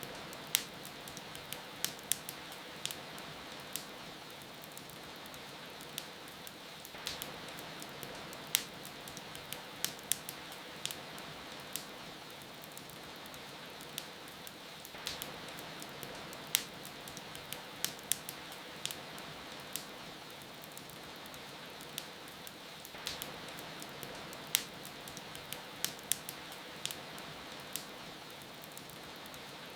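Steady rain with the irregular sharp pops and crackles of a fireplace fire over it.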